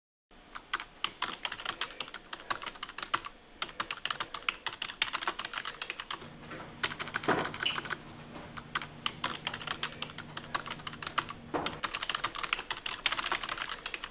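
Typing on a keyboard: a fast, irregular stream of key clicks that keeps going, with a few short pauses.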